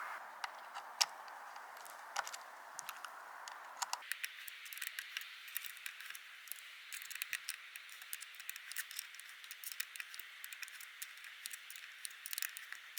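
Faint, irregular small metal clicks and ticks of a hand tool and parts being worked as the screw of a dropper-post remote lever is tightened onto the handlebar.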